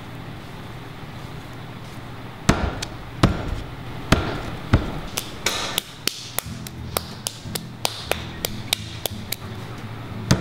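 Hands slapping and patting a ball of soft clay between them. The sharp slaps begin about two and a half seconds in, a few slow ones first and then about three a second.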